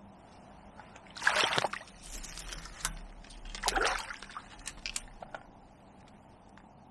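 Water splashing and sloshing in two short bursts, with a few sharp clicks and knocks between and after them.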